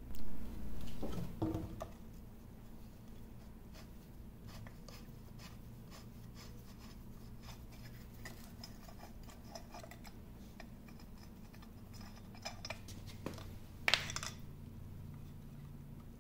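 A screwdriver working the screws of a cast-iron lathe cover: faint scattered ticks and scrapes of metal on metal over a steady low hum. A louder handling knock comes right at the start, and a sharp click about fourteen seconds in.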